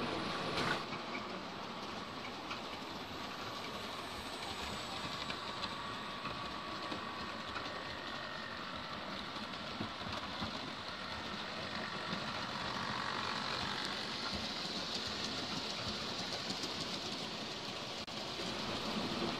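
OO gauge model trains running on the layout's track: the small electric motors whirring and metal wheels rolling on the rails, with scattered faint clicks.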